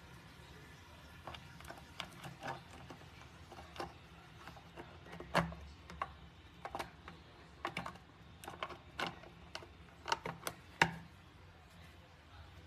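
Plastic press-down pump of a kitchen dish-soap dispenser with a sponge caddy, clicking as it is pushed down again and again: a run of about twenty irregular sharp clicks.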